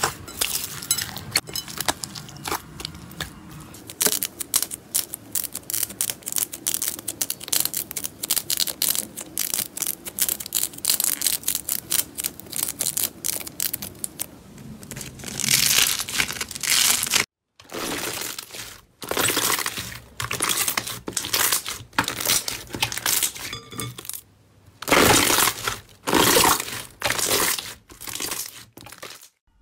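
Hands squeezing and kneading slime. For the first half, blue foam-bead slime gives dense, rapid crackling and crunching clicks. Then come separate crackly squishing swells about a second long as other slimes are pressed, with two brief breaks.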